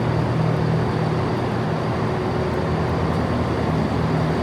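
Diesel multiple unit's engine idling at the platform: a steady low hum that swells and eases a little, over a rumbling background.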